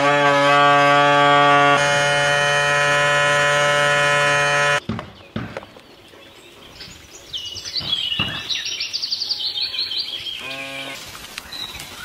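Small 12-volt DC refrigeration compressor of a homemade mini air conditioner starting up: a whine that rises and then settles into a loud steady hum, which cuts off abruptly about five seconds in. A run of high chirps follows a few seconds later.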